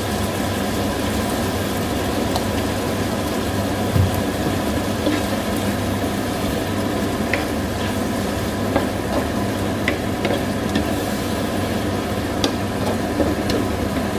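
Squid adobo sizzling and simmering in a frying pan, with a spatula stirring and now and then clicking against the pan.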